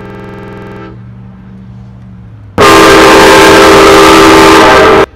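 A locomotive air horn sounding a chord that stops about a second in. About two and a half seconds in, a much louder horn blast follows, boosted until it is clipped and distorted, and cuts off suddenly after about two and a half seconds.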